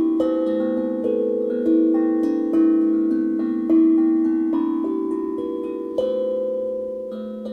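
A steel tongue drum with ten tongues tuned to A minor at 432 Hz, played one note at a time. Each struck tongue rings out with a clear bell-like tone and fades slowly under the next, a new note every half second to a second.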